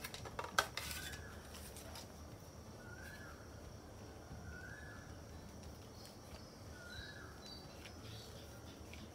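A few sharp clicks and knocks as a hot glue gun and a wooden stick are picked up and handled on a cutting mat, then quiet handling. A short rising-and-falling bird chirp repeats faintly every second or two in the background.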